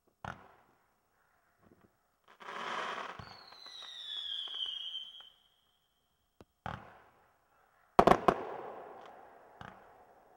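Consumer firework cake firing shots into the air: a sharp report, then a few seconds of hiss with a whistle falling in pitch, then more reports. A quick cluster of loud bangs about eight seconds in is the loudest part.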